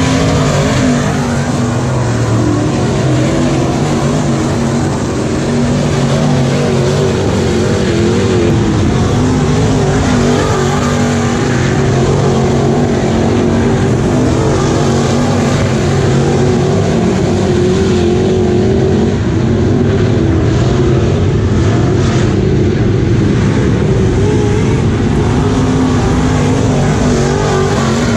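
Engines of several dirt-track modified race cars running hard at once as they lap, their pitch rising and falling as they go on and off the throttle.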